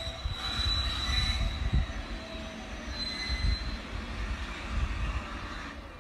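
Steel wheels of railway passenger coaches rolling slowly on the track, a low rumble with faint, thin wheel squeals that come and go.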